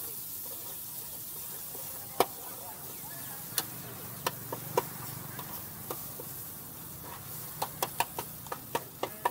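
Noodles and vegetables sizzling steadily on a hot flat street-food pan. Scattered sharp clinks and knocks of utensils and containers come every second or so, then a quick run of them near the end.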